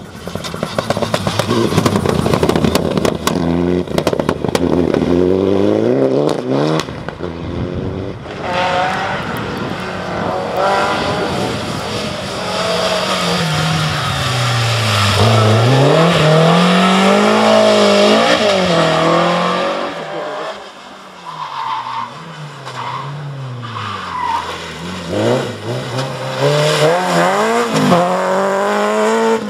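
Rally cars driven hard, one after another. Their engine pitch climbs and drops again and again as they accelerate, shift gear and pass.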